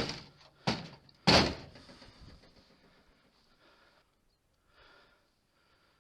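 Three gunshots in quick succession, about half a second apart, the third the loudest, each echoing away briefly.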